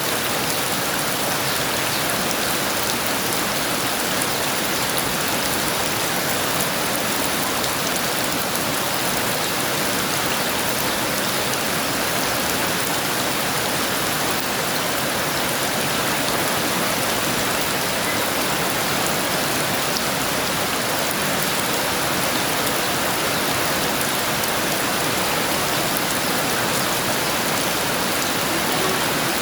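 Heavy rain pouring steadily, a dense even hiss of drops that neither builds nor lets up.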